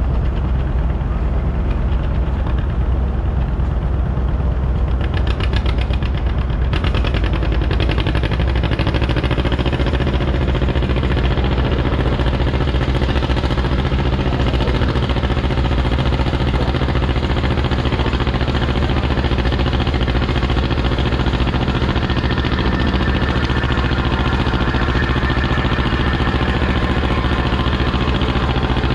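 A heavy engine idling steadily, its note evening out about eight seconds in.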